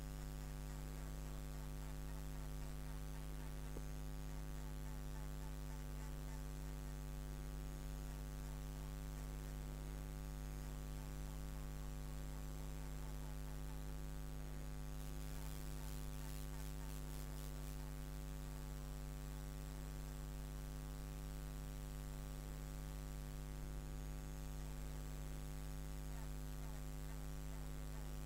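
Steady electrical mains hum, low and unchanging with a stack of overtones. About fifteen seconds in comes a few seconds of quick, light rubbing of a hand over the glass.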